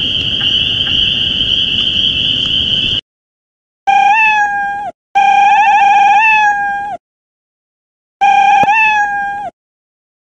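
A shrill, steady high tone over a hiss for about three seconds, then a cartoon cat's meow sound effect three times, each a drawn-out, wavering mew with a falling end.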